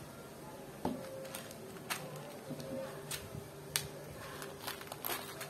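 Small plastic Loz mini-brick pieces clicking and rattling in a clear plastic tray as the tray is handled and tipped: a handful of separate sharp clicks.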